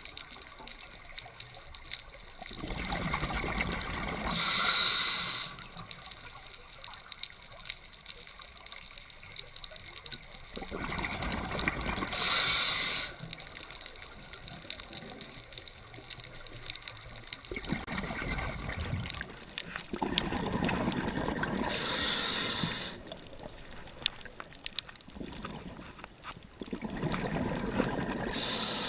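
Scuba diver breathing through a regulator underwater: four breaths about eight seconds apart, each a rush of bubbles and a hiss.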